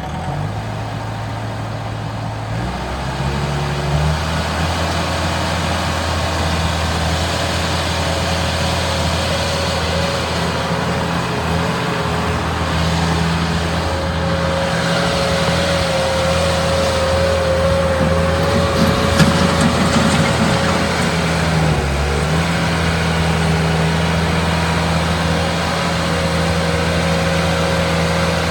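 Bobcat 873 skid steer loader's diesel engine running steadily. Its speed steps up within the first few seconds and dips briefly about 22 seconds in.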